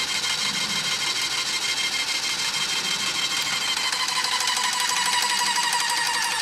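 Airless paint sprayer pump running steadily with a high whine while priming, pushing water-thinned paint out through the drain hose into a bucket.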